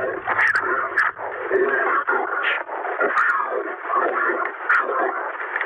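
A distorted, thin-sounding voice talking, cut off in the lows and highs like speech over a radio, with a few sharp clicks and crackles: the processed voice of the purported alien in the interview footage.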